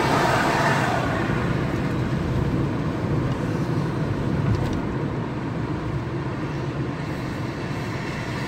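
Steady road and engine noise inside a car's cabin while it drives along a highway.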